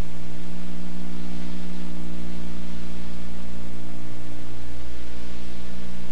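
Steady low electrical hum under a constant hiss. Nothing else stands out.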